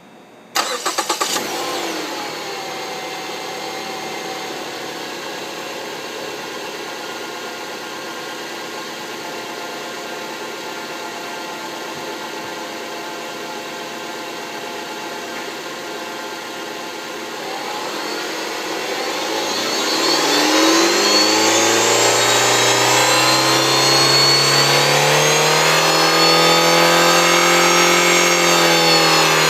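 A 2010 Ford Fusion's 2.5-litre four-cylinder engine starts about half a second in and idles with a whine caused by a bad alternator. Near the middle the engine is revved up and held at higher speed, and the whine rises in pitch with it.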